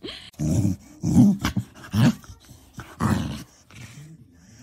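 Corgi growling in four short grumbling bursts, about a second apart.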